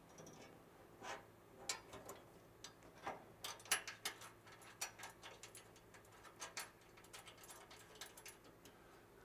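Faint, irregular light metallic clicks of a stainless steel M8 nut and washer being handled and threaded onto a bolt by hand.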